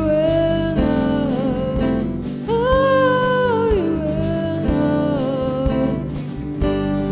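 Live band playing: a singer holds long, sliding notes over guitar and a steady drum beat.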